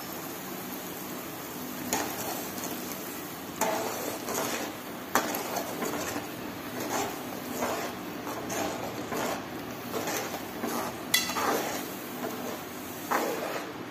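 A wooden spatula stirring broken wheat rava into boiling water in an aluminium pan, scraping along the pan with irregular knocks against it, over the bubbling of the boil.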